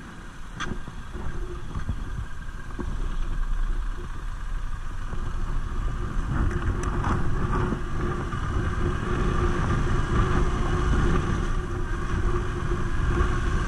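Yamaha MT-07's parallel-twin engine heard from on board the motorcycle, pulling at low speed and gradually getting louder as the bike gathers speed, with road and wind rumble underneath.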